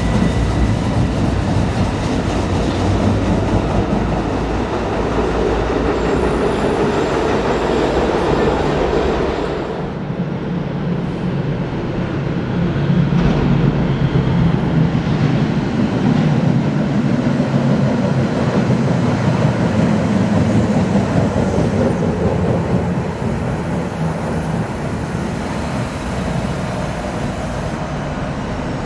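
Duewag B80C Stadtbahn light-rail cars running through an underground station, a steady loud rumble of wheels and motors echoing in the tunnel. The sound changes abruptly about ten seconds in, then settles into a deeper running rumble.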